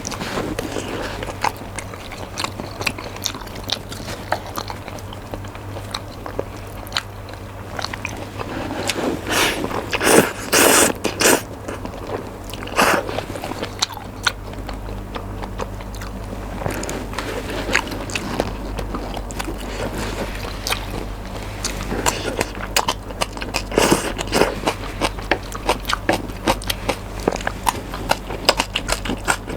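Close-miked mouth sounds of a person chewing spicy mixed noodles: a steady run of wet clicks and smacks, with louder, longer bursts about ten seconds in and again near twenty-four seconds. A steady low hum from the microphone sits underneath.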